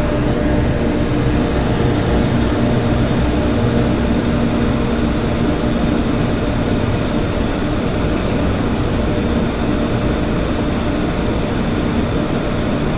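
A motor running steadily, with a low droning hum.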